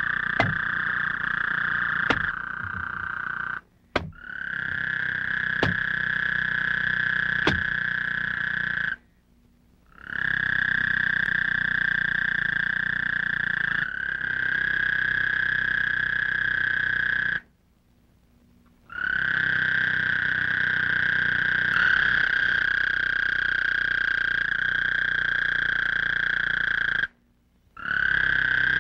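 A dense night chorus of frogs calling steadily on one pitch. It cuts off abruptly four times for brief silences. A few sharp clicks come through in the first several seconds.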